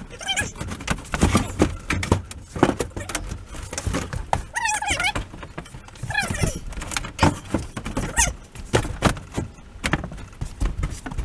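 Irregular knocks, thumps and clatter of hands handling panels and tools during renovation work inside a small camper, with a couple of high squeaks about four and a half and six and a half seconds in.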